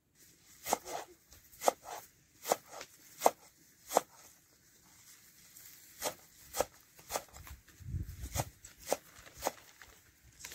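Cleaver chopping fresh green herbs on a wooden cutting board: sharp knocks of the blade, about one a second at first, quickening to about two a second after six seconds.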